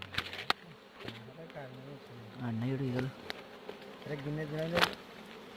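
Honeybees buzzing close to the microphone around their exposed comb as it is disturbed with a stick. The buzz comes and goes in passes of about a second, wavering up and down in pitch as bees fly past, with a few sharp clicks of handling.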